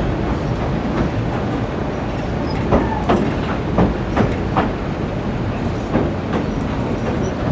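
Train carriage running over a steel trestle viaduct: a steady rumble of wheels on rails, broken by irregular clicks and clanks, heard through an open carriage window.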